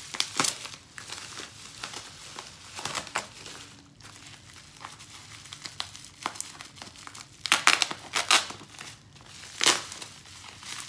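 Bubble wrap crinkling and crackling as it is pulled and unwrapped by hand from a crystal, in irregular crackles, loudest in a flurry about three quarters of the way through and again near the end.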